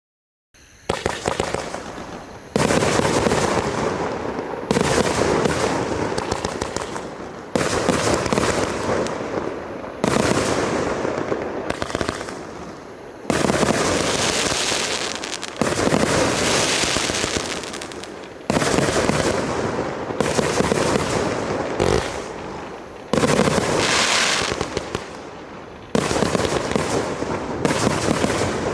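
A 100-shot, 1.2-inch consumer firework cake firing continuously: rapid launch thumps and bursts with crackling. The firing comes in surges about every two and a half seconds, each starting loud and tailing off.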